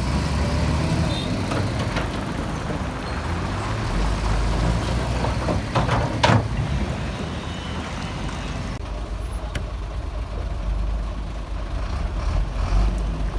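Heavy diesel construction machinery running with a steady low engine rumble, with a few brief sharp sounds about six seconds in.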